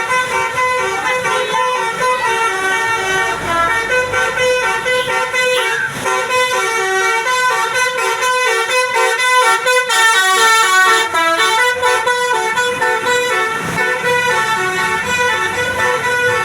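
Bus telolet horn, a Basuri multi-tone air horn, playing a melody of quick stepped notes one after another.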